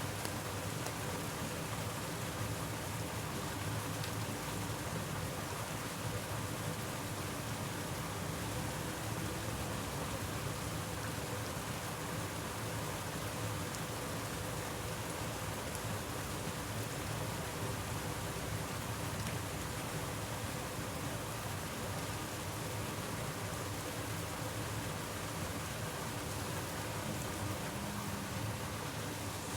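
Steady, even hiss of outdoor background noise at a constant level, with no distinct events.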